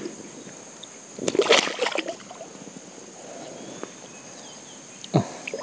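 River water sloshing and splashing as a fishing net is handled in it, with a louder stretch about a second in and a short splash near the end. Insects shrill steadily in the background.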